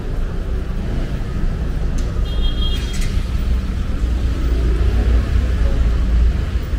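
Street traffic noise: a low rumble of passing motor vehicles that swells in the second half, with a brief high-pitched tone about two and a half seconds in.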